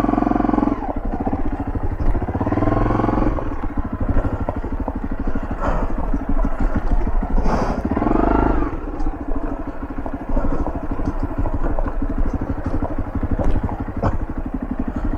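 Motorbike engine running at low speed on a rough, broken road, its note rising and falling as the throttle is worked, with louder pulls near the start, around 3 seconds in and around 8 seconds in. A few sharp knocks come through around 6 and 7.5 seconds in.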